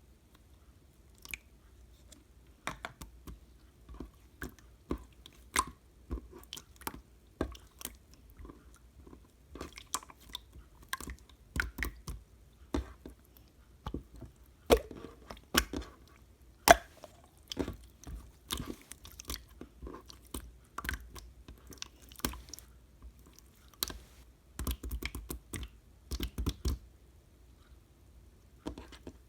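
Slime being pressed, stretched and poked by hand, making irregular sticky clicks and pops, a few each second.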